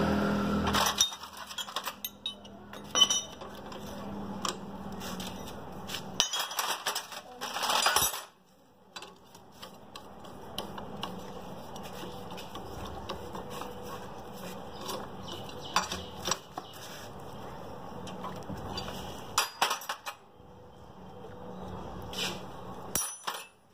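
Metal hand tools clinking, tapping and clicking irregularly against the flywheel and engine casing of a Honda 70 motorcycle while a wrench is worked on the flywheel's centre nut. A louder low rumble cuts off about a second in.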